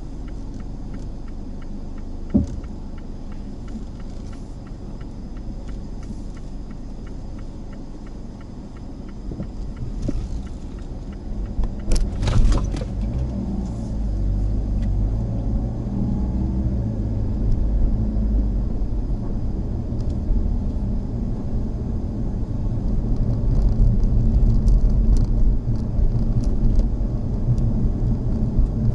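Mazda Axela Sport driving slowly with a steady low rumble of engine and tyres, growing louder about halfway through. A sharp click comes a couple of seconds in, and a louder knock about twelve seconds in.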